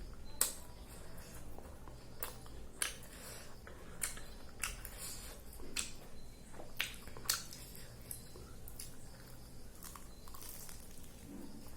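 A person eating close to the microphone: chewing with irregular sharp clicks and crunches.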